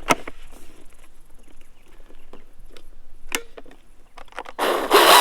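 Battery being swapped on a GreenWorks Commercial cordless chainsaw: a few sharp plastic clicks and knocks as the pack is handled and seated. Then, about four and a half seconds in, the electric chainsaw starts abruptly and runs loudly at full speed.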